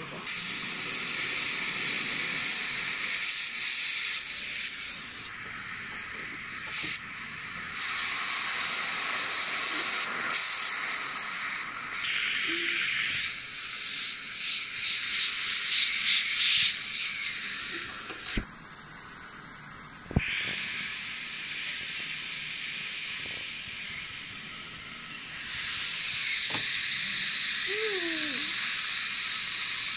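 Dental suction hissing steadily through an Isodry mouthpiece held in the mouth. From about the middle a louder hiss comes in, stops abruptly for a couple of seconds, then starts again.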